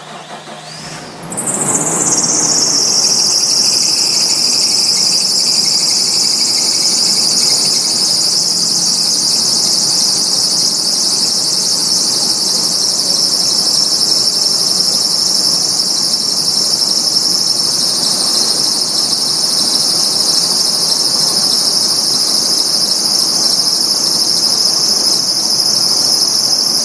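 Nissan Skyline R34 GT-T's RB25DET turbo straight-six running with a loud, steady, high-pitched squeal from the engine bay, which sets in about a second and a half in and holds without change. The timing belt or the drive (V-)belt is suspected as the cause.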